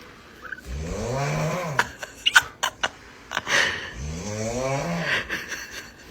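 Snoring: two long snores about three seconds apart, each rising and then falling in pitch, with a few sharp clicks in between.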